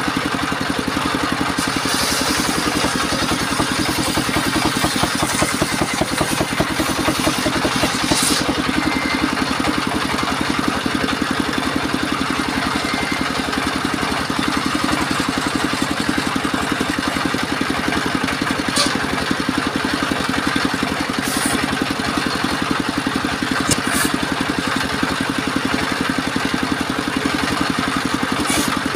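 Engine of a mobile circular sawmill running steadily, with a few short, sharp knocks scattered through it.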